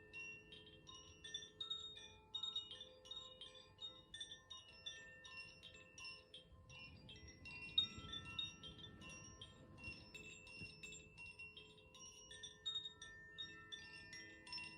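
Koshi chime in the Aria tuning, a bamboo wind chime with tuned metal rods, tinkling softly as its clapper strikes the rods at irregular moments. The bright, overlapping notes keep ringing on into one another.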